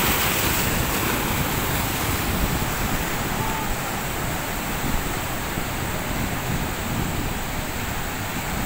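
Sea surf breaking and washing in a steady rush, with wind buffeting the microphone.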